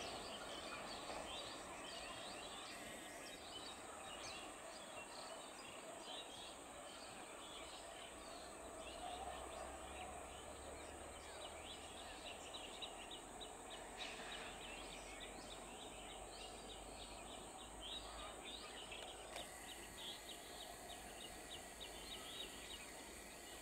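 Small birds chirping and twittering in many quick, high notes over faint, steady outdoor background noise.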